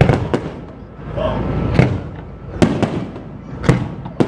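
Fireworks display going off: a run of about seven sharp bangs and pops at uneven intervals, over a steady low rumble.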